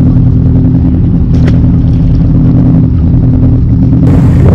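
Boat engine running at a steady speed, a loud low hum, with a brief click about a second and a half in.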